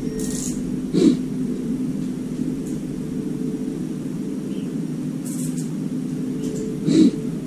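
Hitachi front-loading washer-dryer running after being switched on: a steady low hum, with two short knocks, one about a second in and one near the end.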